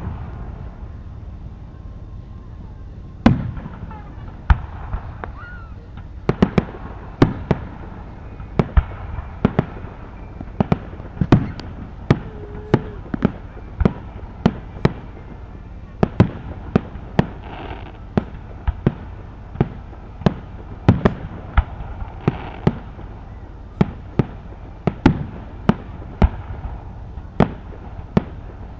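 Aerial fireworks bursting in a steady run of sharp pops and booms, about one or two a second, beginning about three seconds in.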